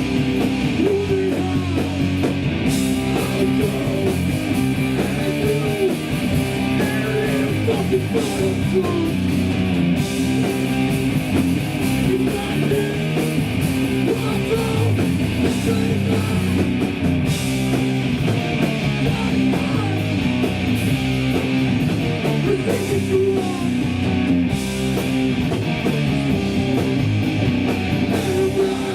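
Live hardcore punk band playing loud and without a break: distorted electric guitars, bass and drum kit.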